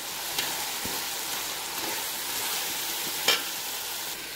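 Chopped tomatoes, onions, mint and coriander leaves sizzling in hot oil in a pan as they are stirred, with two brief knocks, the louder one near the end.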